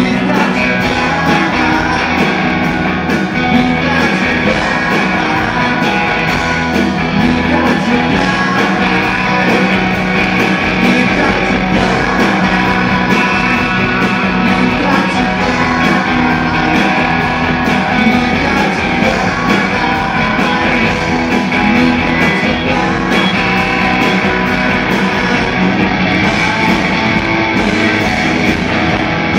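Live rock band playing loud and steady: electric guitars, drums and bass, with singing.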